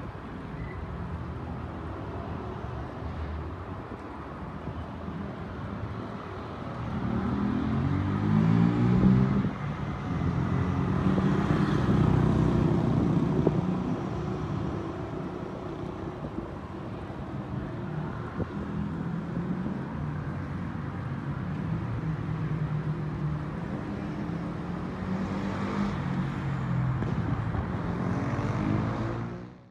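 Diesel engines of heavy tractor trucks hauling lowboy trailers, running and pulling away slowly, the engine pitch rising and falling as they accelerate about 7 seconds in and again near the end.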